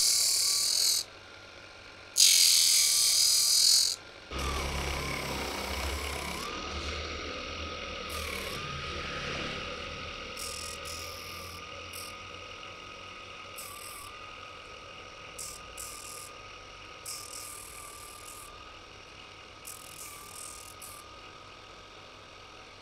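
Mini disc sander running with a steady high whine while the corner of an acrylic plate is ground against the sanding disc to round it into a fillet. Two loud grinding passes come in the first four seconds, then lighter, intermittent grinding touches that grow fainter, with the whine dipping briefly in pitch a couple of times.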